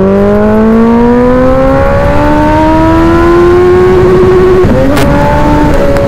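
Sport motorcycle engine accelerating hard, its pitch climbing steadily for about four and a half seconds. About five seconds in the pitch drops suddenly with a sharp crack, and the engine holds a lower, steady note.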